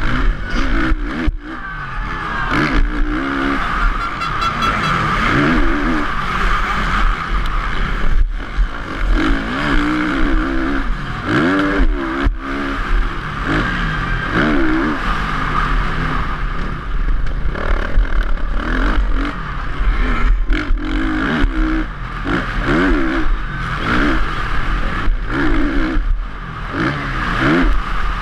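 Motocross bike engine heard from a camera mounted on the bike, its revs rising and falling over and over as it is ridden hard around a dirt track, over a constant deep wind rumble on the microphone.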